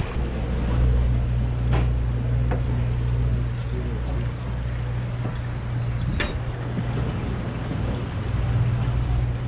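A boat's engine running steadily with a low hum, over a light wash of outdoor noise; two short sharp knocks come about two and six seconds in.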